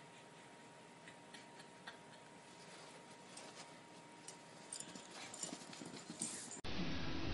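Light, irregular clicking taps, growing busier, typical of a puppy's claws pattering on a hard floor. Near the end they give way abruptly to a louder, steady rushing noise.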